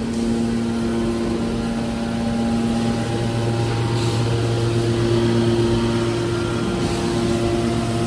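Hydraulic power unit of a scrap metal baler running: a steady machine hum with several steady tones, whose balance shifts slightly about three seconds in.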